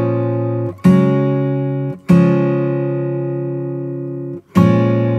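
Background music: guitar chords struck three times, each left to ring and slowly fade.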